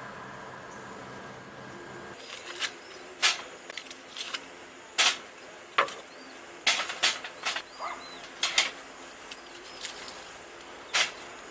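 A dozen or so sharp, irregular clicks and knocks, with faint high bird chirps behind them.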